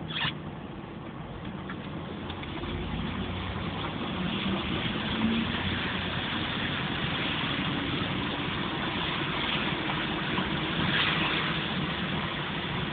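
Car driving on a wet, slushy road, heard from inside the cabin: steady engine and tyre noise with the hiss of water under the tyres, growing a little louder after a few seconds. A brief click right at the start.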